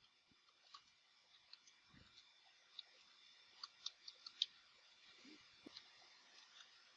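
Near silence with faint, irregular clicks of computer keys being typed, a little busier a few seconds in.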